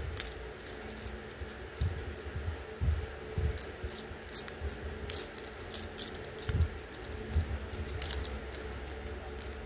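Small plastic building bricks clicking and clattering as they are handled and pressed together, many light, sharp clicks scattered throughout, with soft handling thumps underneath.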